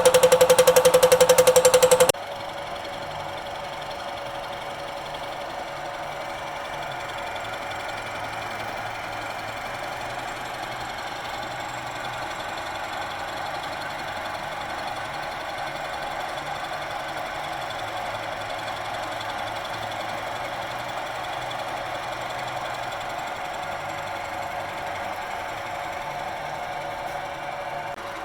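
Milling machine taking a surfacing cut. For about two seconds it is a loud, rapidly pulsing cut with a strong steady whine, then it changes abruptly to a quieter, steady machining sound.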